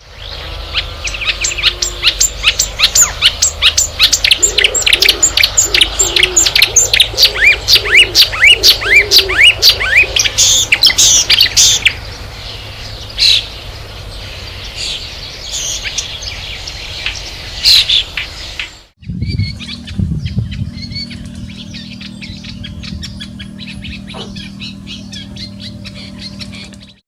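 Marsh warbler singing its varied, mimicking song: rapid runs of sharp repeated notes and quick rising sweeps. About two thirds of the way through, the sound cuts to a quieter stretch of song over a steady low hum.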